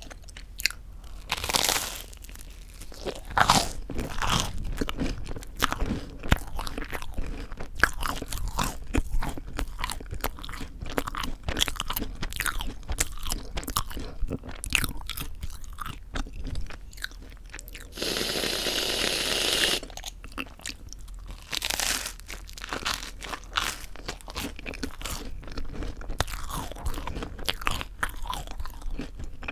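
Close-miked bites and chewing of crisp toasted bread, a dense run of irregular crunches. About two-thirds of the way through, a steady hiss of about two seconds: whipped cream sprayed from a can.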